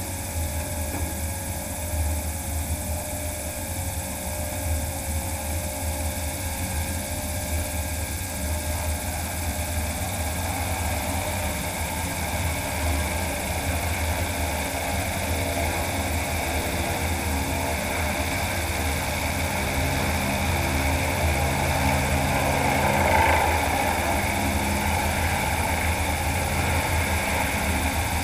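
Propeller of a de Havilland DHC-2 Beaver floatplane driven by a magniX magni500 electric motor, running steadily as the plane moves across the water on its floats, with the rush of spray and wind over the airframe. The sound grows a little louder in the second half.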